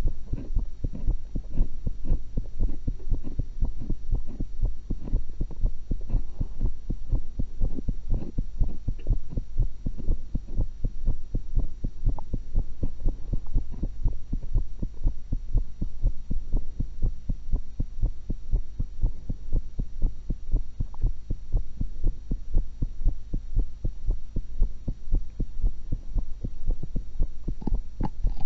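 Human heartbeat picked up through a stethoscope, a steady run of low thuds.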